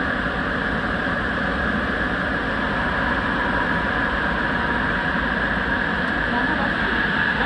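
Sapporo Municipal Subway Tozai Line 8000-series rubber-tyred train running through a tunnel, heard from inside the rear cab. A steady running rush with a strong high band of noise, growing slightly louder after about three seconds.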